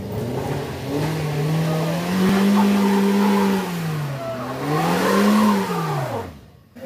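Daihatsu Gran Max van's engine revving hard under load on a steep dirt climb: the pitch rises and holds, dips briefly, rises again, then falls away near the end.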